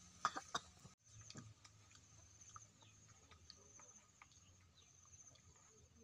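Faint outdoor ambience: a steady, pulsing high insect trill with scattered short bird chirps. A few sharp clicks sound about half a second in, and the sound cuts out briefly at about one second.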